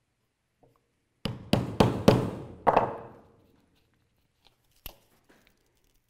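Mallet driving a steel stitching chisel through veg-tanned leather onto a pounding board: five quick blows about a second in, punching a row of stitch holes, then a single faint click.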